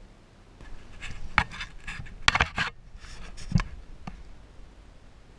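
Hands handling parts over an exposed engine crankshaft: a quick run of short rustles, scrapes and light clicks, with one dull knock about three and a half seconds in.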